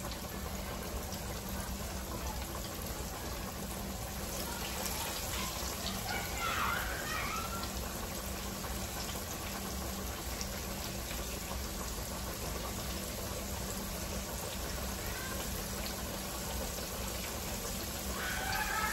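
Fish-fry-coated pork chops deep-frying in very hot oil in an electric deep fryer: a steady sizzle.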